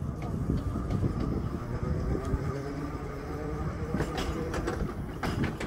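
Electric tram running along narrow-gauge track: a steady low rumble of steel wheels on the rails, with a quick run of sharp clicks from about four seconds in as the wheels pass over the track.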